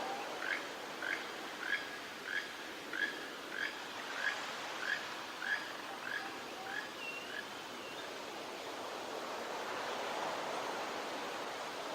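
Surf washing steadily on the shore, swelling a little near the end. Over it an animal repeats a short chirping call about every half second for the first six seconds or so, followed by a single brief whistle.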